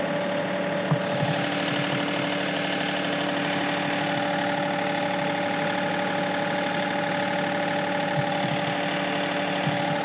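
John Deere 2038R compact tractor's three-cylinder diesel engine running steadily at about 1500 RPM while powering the 270B backhoe's hydraulics, with a few light knocks.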